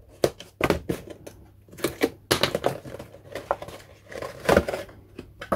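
Hobby knife slitting the cellophane shrink-wrap seal on a cardboard model kit box, then the plastic wrap crinkling as it is pulled off, heard as an irregular run of sharp crackles and taps.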